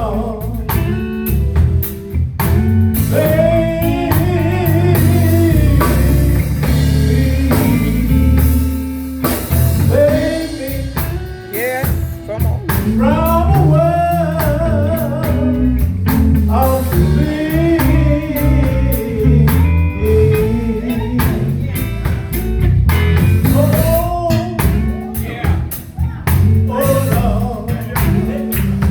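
Gospel group singing with a band: a lead voice with strong vibrato over electric guitar, bass and drums.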